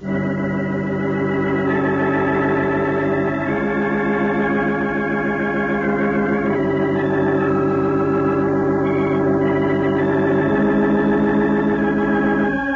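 Organ music: held chords that change every few seconds, the dramatic musical bridge that closes a scene in a radio soap opera.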